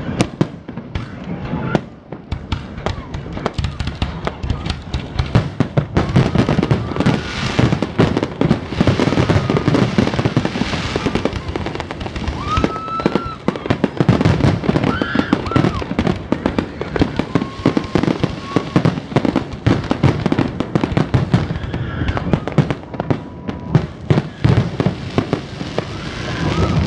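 Aerial fireworks show: a dense, rapid barrage of bangs and crackles, thickest from about six seconds in.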